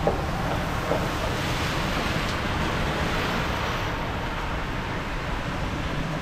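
Wind buffeting the microphone over the hiss of car tyres going through floodwater on a wet road. The water hiss swells as a car passes, from about one and a half to four seconds in. Two light knocks come in the first second.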